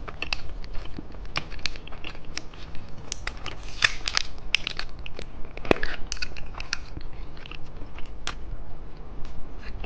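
Close-miked crackling and crunching of a hamburger-shaped candy and its plastic wrapper, heard as a string of sharp, irregular clicks, loudest about six seconds in.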